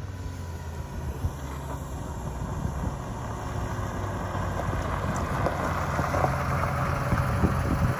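NSU Ro 80's twin-rotor Wankel engine running at low speed as the car approaches and grows louder, with a few short crackles of tyres on gravel in the second half.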